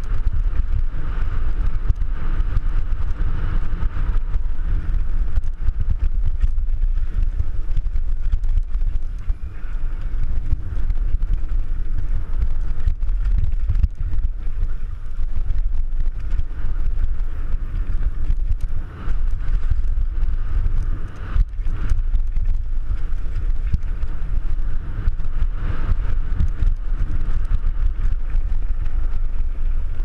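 Downhill mountain bike rolling over a rocky dirt trail: steady wind buffeting on the action camera's microphone, with the clatter and rattle of the bike bouncing over stones and bumps.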